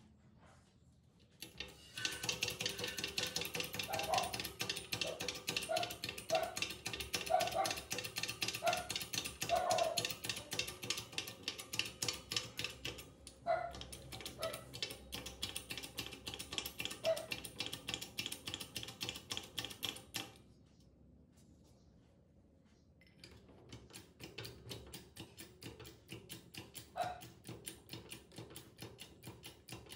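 Rapid, even clicking from a restored hydraulic bottle jack being worked as its ram extends, with a few short squeaks in the first half. The clicking stops abruptly about two-thirds of the way through and resumes more softly a few seconds later.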